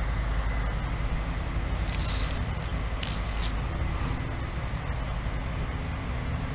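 Case IH rotary combines running while cutting soybeans, a steady low engine drone with even hum lines. Two brief rustles come about two and three seconds in.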